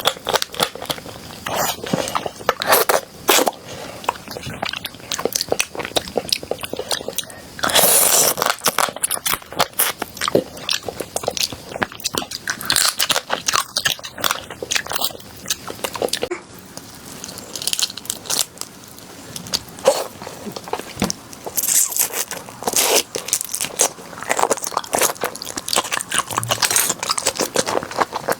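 Close-up biting and chewing of a crunchy food: crisp crackling crunches throughout, with louder bursts of crunching about 8 seconds in and again about 22 seconds in.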